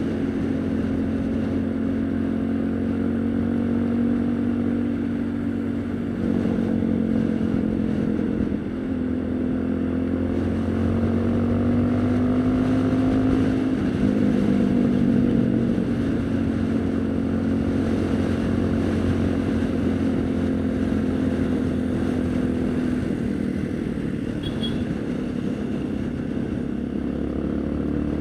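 Haojue NK150 motorcycle's single-cylinder engine running under way. Its note steps up and down in pitch several times as the revs change, and it climbs again near the end.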